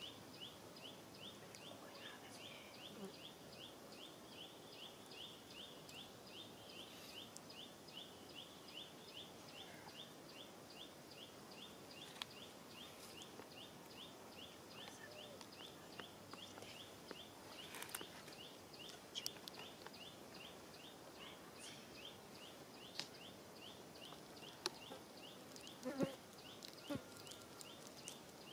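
Faint outdoor ambience dominated by an insect chirping in a rapid, even, high-pitched rhythm. A few soft clicks and knocks, the loudest near the end.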